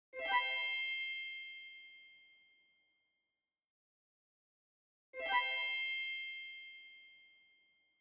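A bell-like chime struck twice, about five seconds apart. Each strike rings out and fades over about two seconds.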